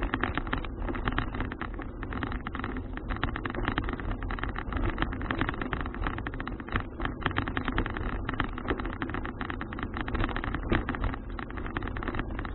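Steady rumbling noise of a folding bicycle on the move: wind buffeting the action camera's microphone together with tyre and road noise, full of small crackles.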